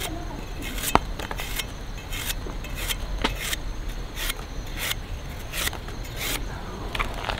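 A knife cutting through fresh, fibrous palm heart: short, crisp scraping strokes at uneven spacing, roughly two a second, with a sharp click about a second in.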